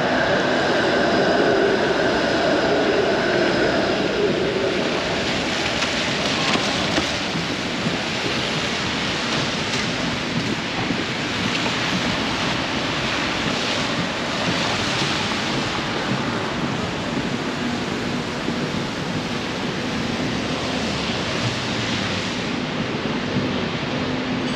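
Steady hiss of rain on a wet city street with traffic noise. A humming tone fades out over the first four seconds, and a low steady hum comes in during the second half.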